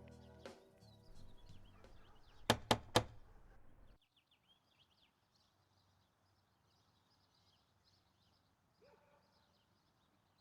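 Three sharp knocks on a front door in quick succession, about two and a half seconds in, followed by faint birdsong.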